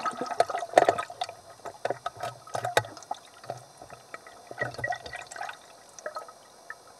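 Stream water gurgling and bubbling right at the microphone, a busy run of irregular glugs, plops and drips that thins out over the last couple of seconds.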